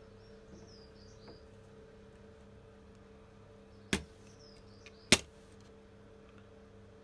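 Two sharp clicks about a second apart, the second louder, as a Japanese pull saw and a magnetic dovetail guide are set against an oak board before sawing. A faint steady hum runs underneath.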